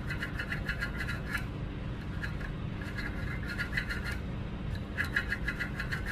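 Thin hand file rasping on a stainless steel spear point, smoothing the slot and hook edge of its barb. The file goes in several runs of quick strokes with short pauses between.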